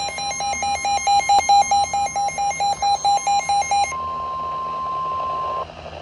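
Weather alert radio sounding a warning alarm. It gives rapid shrill beeps at about five a second, and about four seconds in switches to a steady single tone held for nearly two seconds. That tone is the National Weather Service warning alarm tone that comes just before a severe thunderstorm warning is broadcast.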